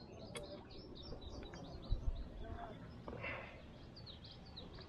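Small songbirds chirping over and over in short high notes, above a low rumble that swells about two seconds in.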